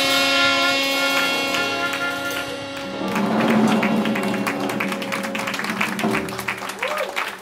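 A jazz quintet's closing chord: trumpet and saxophone hold a long note over piano, double bass and drums. About three seconds in, it gives way to a louder drum-and-cymbal flourish that ends the tune, and scattered clapping starts near the end.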